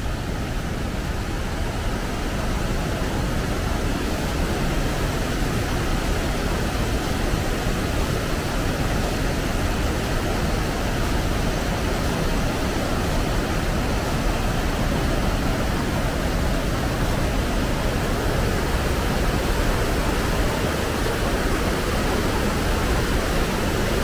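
Ryuzu Waterfall's cascade on the Yukawa River rushing steadily, an even wash of water noise that grows a little louder over the first few seconds.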